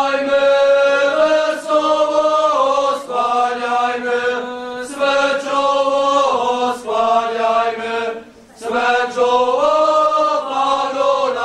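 A group of voices singing a Christmas carol in unison, in phrases of long held notes, with a short breath pause about eight seconds in.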